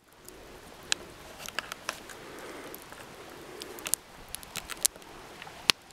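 Small campfire crackling, with irregular sharp pops over a low hiss; the loudest pop comes near the end.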